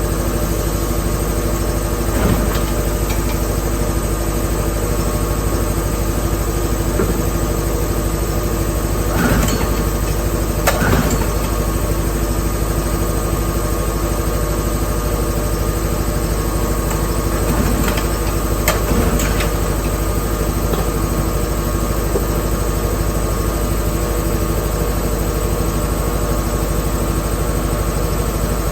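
A motor running steadily at an unchanging pitch, with a few light knocks.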